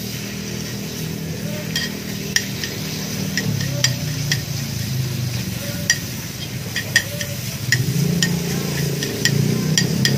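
Chicken pieces sizzling in oil on a hot pepper-rice iron plate over a gas burner, with metal tongs clicking and scraping against the plate every second or so, over a low hum.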